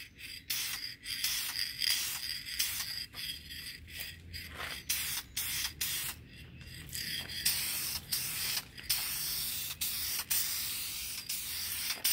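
Aerosol spray can of clear gloss polyurethane hissing, first in a string of short spurts, then in longer, steadier passes from about halfway on.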